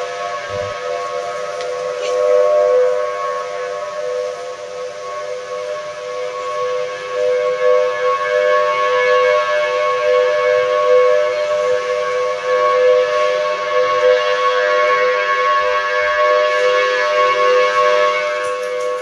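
Several Federal Signal Thunderbolt 1000T outdoor warning sirens sounding together as a severe-weather alert. Their steady wails sit at slightly different pitches, and the combined sound swells and fades in loudness.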